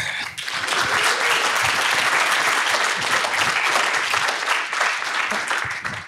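Audience applauding steadily after a talk; the applause fades out near the end.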